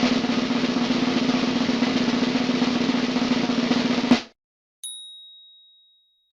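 Snare drum roll lasting about four seconds and ending on a sharp accent hit. After a short pause comes a single high bell ding that rings out and fades.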